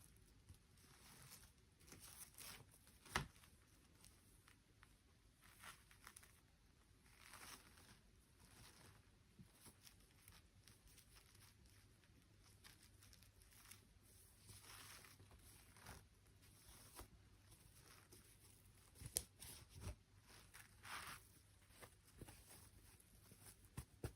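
Faint, scattered rustling and scraping of toy packaging being handled, with a few sharp clicks, the loudest about three seconds in and a pair near twenty seconds.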